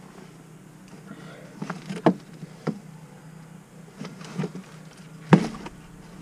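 Gear being handled in an open pickup truck bed: a series of knocks and rustles, about six in all, with the loudest knock about five seconds in.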